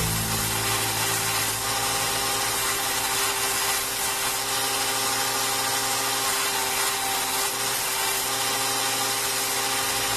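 An electric power tool running steadily, with background music underneath.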